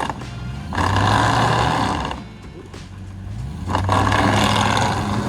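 Off-road 4x4's engine revving hard in two surges, a second or so in and again near the end, while its tires spin and churn on loose dirt. The wheelspin comes from traction control that isn't working.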